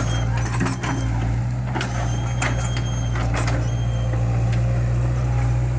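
Heavy equipment engine running steadily, with scattered knocks and rattles over it.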